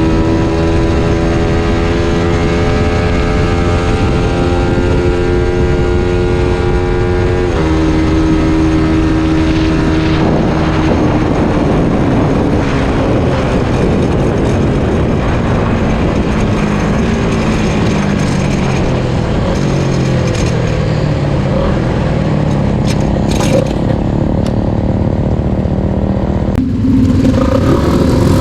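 Suzuki Satria FU 150's single-cylinder four-stroke engine heard on board while riding. It holds steady revs, then jumps up in pitch about seven seconds in. From about ten seconds a rushing noise covers it and the engine note falls gradually as it comes off the throttle, with another change in note near the end.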